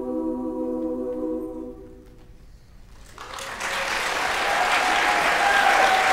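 A women's a cappella barbershop chorus holds its final chord, which dies away about two seconds in. After a brief hush, audience applause breaks out and swells.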